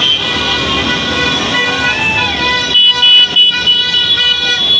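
Motorcycle and car horns honking, several held at once, over the running engines of a street motorcycle caravan, with a few louder sharp blasts just past the middle.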